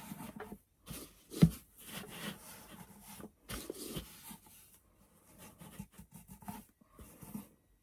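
Rubbing and light scraping as glued paper is worked and smoothed around a box by hand, with one sharp knock about one and a half seconds in.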